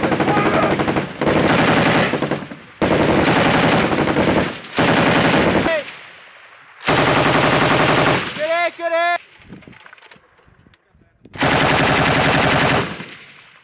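Belt-fed machine guns firing on a range in six bursts of about a second each, with short pauses between them.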